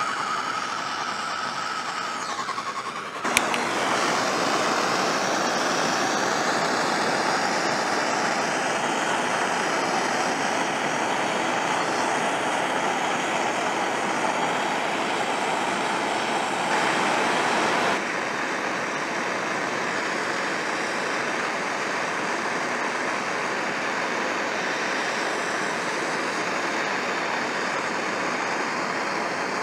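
Hand-held gas torch burning with a steady hiss as it heats an aluminium skeg weld while aluminium rod is fed in; its gas bottle is starting to run low. There is a click about three seconds in, after which the hiss is louder, and it drops a little past the middle.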